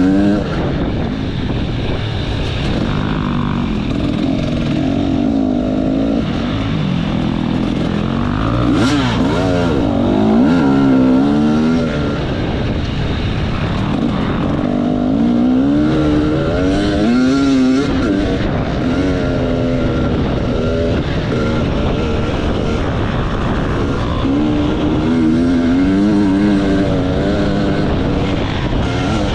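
Enduro motorcycle engine revving up and down over and over as the throttle is opened and closed, its pitch rising and falling in waves.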